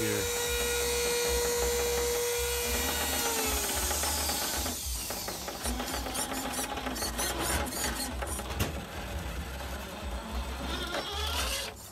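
A small electric motor whines steadily at high speed, then winds down, its pitch falling about three seconds in. Irregular mechanical clicking and rattling follows.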